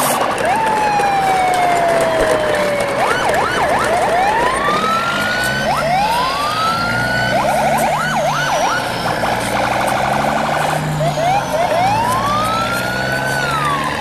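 Siren sounds: a long falling wail, then quick up-and-down yelps and slower rising sweeps, with a fast pulsing stretch near the middle, over a low rumble.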